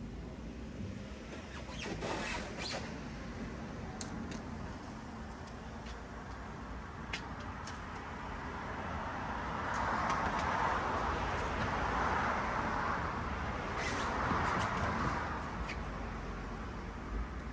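Scattered clicks and knocks of straps and buckles being worked on a J-cradle kayak roof rack, then longer rubbing and scraping as the plastic kayak hull is shifted and lifted on the rack, over a steady low rumble.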